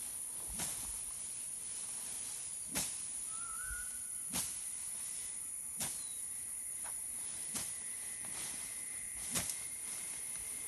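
Steady high-pitched drone of insects, with soft knocks every one and a half to two seconds and a short faint chirp about a third of the way in.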